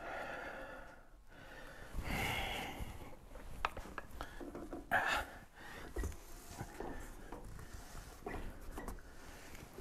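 Hard breathing from effort, with scattered light metal clinks and knocks as a pry tool works at an RTV-sealed joint on the rear wheel hub. A sharper knock comes about halfway through.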